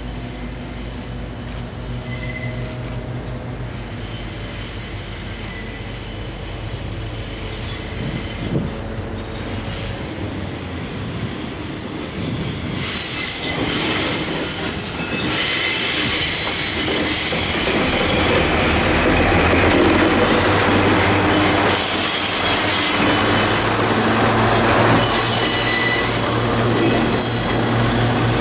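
A DD55 diesel locomotive hauling an unpowered JR East 203 series electric commuter train slowly around a sharp curve. The locomotive's engine gives a low drone as it approaches and passes. After it, the wheels squeal in high, steady tones on the curve, louder through the second half as the cars roll past close by.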